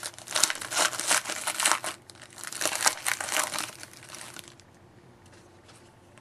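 Foil wrapper of a hockey card pack crinkling and crackling as it is torn and handled, stopping about four and a half seconds in.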